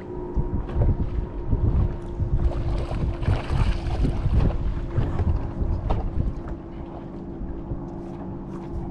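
Wind buffeting the microphone and water lapping at a bass boat's hull under a steady hum. About three to four seconds in there is a louder stretch of splashing as a hooked bass thrashes at the surface beside the boat.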